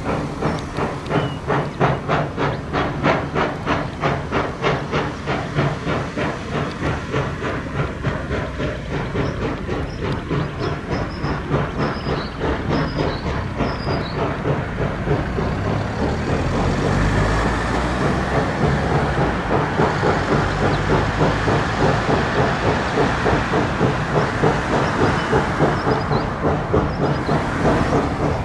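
The C17 class steam locomotive C17 967 working under steam, its exhaust beating in a steady rhythm with hissing steam. The beats grow louder, with more low rumble, from a little past halfway.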